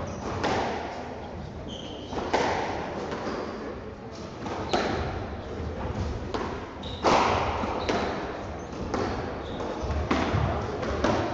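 A squash rally: the ball knocks sharply off rackets and the court walls about once a second, in a hall that echoes, with a few short high squeaks from shoes on the court floor.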